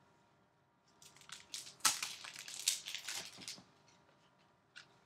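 Crinkling and rustling of trading-card packaging being handled. It starts about a second in and lasts roughly two and a half seconds, then dies away.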